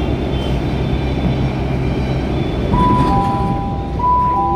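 Delhi Metro train running, heard inside the carriage; a low motor hum drops away about two seconds in. Near the end, a two-note electronic chime starts and repeats, the train's door chime.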